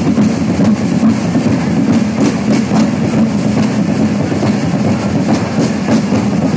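A group of drums played together in a continuous, dense rhythm.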